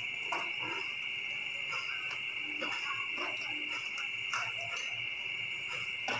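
Steady high chirring of crickets, with soft eating sounds over it: chewing and fingers picking at fried rice and chicken on a plate.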